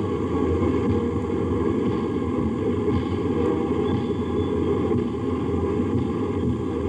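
Steady low rumble of tanks' engines and tracks driving past in a parade, heard on an old, noisy archival recording.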